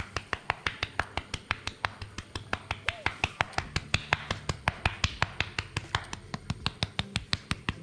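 Hand-twisted spice mill grinding paprika over a pan: a fast, even run of sharp clicks, about six a second.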